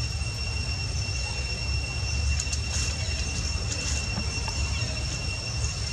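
Steady low outdoor rumble under a continuous high-pitched whine, with a few faint rustles and clicks.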